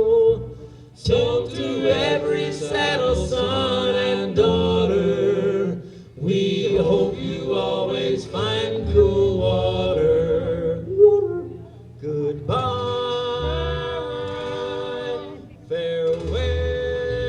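Western cowboy band singing a wordless passage in harmony over bass notes, in phrases with brief breaks.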